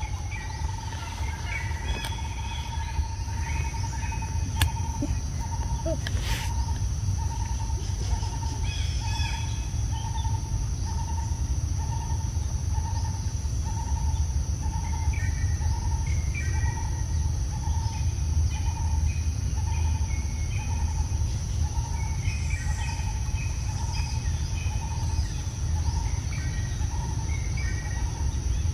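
Forest ambience of calling birds: one bird repeats a single low note over and over, a bit more than once a second, after holding it for the first few seconds, while other birds chirp higher. Under them runs a steady high insect whine and a constant low rumble.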